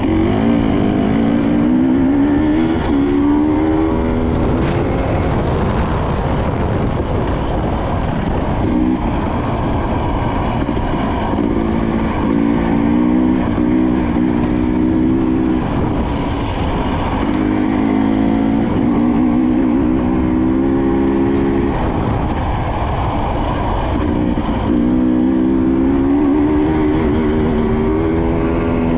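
Husqvarna TE300i single-cylinder two-stroke dirt bike engine running hard on a trail, its pitch climbing as the throttle is opened, holding steady in stretches and falling away between.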